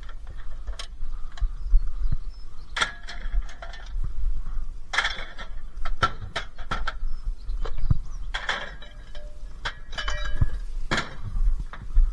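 Scrap metal being handled and sorted: irregular clanks, knocks and rattles of metal tools and fittings knocked together and dropped, some with a short metallic ring.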